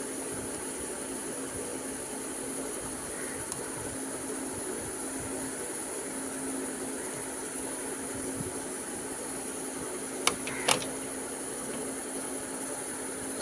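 Steady low hum with a high-pitched hiss, broken by two sharp clicks about ten seconds in.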